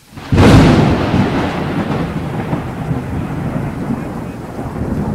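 Loud rushing, rumbling noise of floodwater running fast down a narrow lane in heavy rain. It starts suddenly just after the start and carries on steadily, with a deep rumble underneath.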